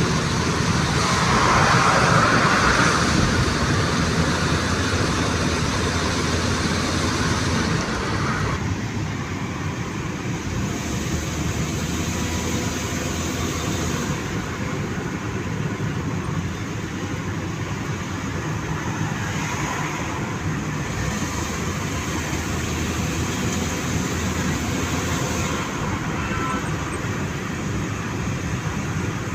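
Steady road traffic noise, with a louder passing vehicle in the first few seconds.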